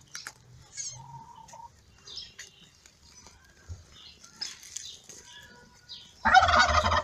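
Newborn kittens nursing: thin, high squeaky mews and light scratchy rustling of the woven plastic sack under them. Near the end comes a loud, rough burst of about a second.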